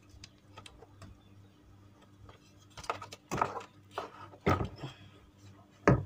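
Metal clinks and knocks as a washing-machine motor and its steel mounting bracket are handled and set down on the machine's metal base plate. Faint small clicks come first, then a few louder clatters in the second half, with the sharpest knock near the end.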